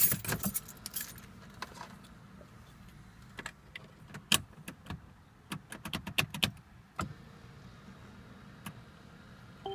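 Keys jangling and clicking as they are handled: a dense run of sharp, irregular clicks in the first second, then scattered single clicks. A short beep sounds near the end.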